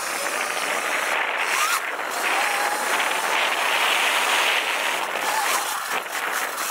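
Sur-Ron Light Bee electric dirt bike with a KO Moto Factory Spec motor being ridden: a steady rush of wind and tyre noise, with a faint electric-motor whine that wavers up and down in pitch.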